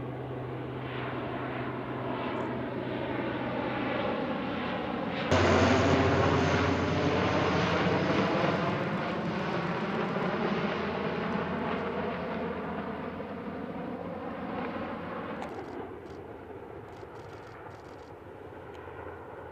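C-130 Hercules four-engine turboprop transport flying overhead with a steady propeller drone. About five seconds in it turns abruptly louder and passes with a falling pitch, then fades toward the end.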